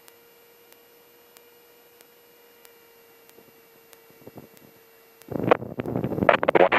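Faint steady electrical hum in the aircraft's intercom audio feed. About five seconds in, a loud radio transmission cuts in over the headset audio.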